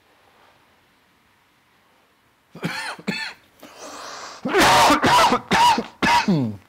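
A man's coughing fit, set off by a lungful of cannabis vapour from a desktop vaporizer: a run of repeated hard coughs into his elbow, starting about two and a half seconds in and loudest near the end.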